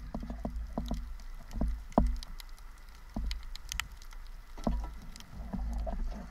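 Irregular underwater knocks and clicks of speargun gear being handled, heard underwater over a low rumble of moving water. The loudest knock comes about two seconds in.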